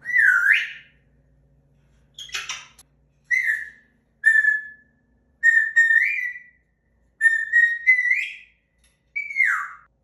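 African grey parrot whistling a series of short calls at about the same pitch: some swoop down and back up, some are held level or rise at the end, with one rougher, harsher call among them.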